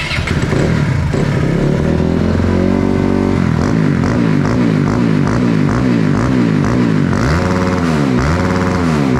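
Motorcycle engine, fitted with an aftermarket CDI whose DIP switches set the rev limiter, revved hard against the limiter. The pitch climbs, then repeatedly saws up and cuts back about twice a second as the limiter cuts in. Near the end it swings up and down in throttle blips. It is loud enough to be called noisy.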